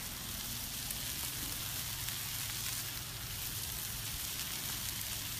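Chicken pieces, zucchini and yellow squash frying on a Blackstone flat-top griddle: a steady sizzle.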